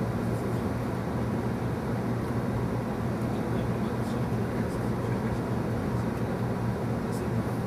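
Steady running noise inside the passenger cabin of a 300 Series Shinkansen travelling at speed: an even rumble from the wheels and track with a low hum beneath it.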